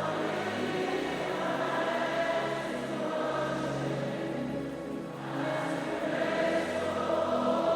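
Soft gospel worship music with a choir holding sustained chords.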